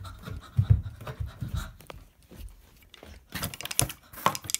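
Breathy panting close to the microphone, with scraping and clattering handling noises from about three seconds in.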